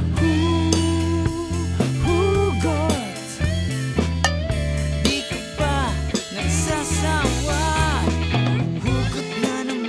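Instrumental section of a rock song, recorded raw: a Ludwig drum kit keeps the beat under a bass guitar through an Ampeg SVT-7 Pro rig. An electric guitar through a Laney Lionheart tube amp plays a line with bent notes.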